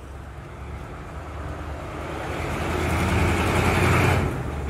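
A motor vehicle drives by, its engine rumble and road noise growing steadily louder to a peak about four seconds in, then dropping off sharply.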